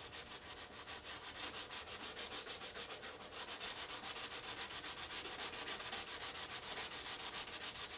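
180-grit sandpaper on a hand block rubbing back dried modelling putty on a plastic model saucer, in quick, even back-and-forth strokes. The putty is sanding off as a fine dry powder.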